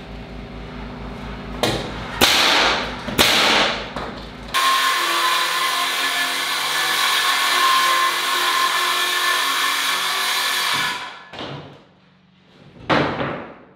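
Pneumatic nail gun firing three sharp shots into OSB wall sheathing. Then a circular saw starts abruptly, runs for about six seconds cutting a plywood sheet, and winds down. A thump comes near the end.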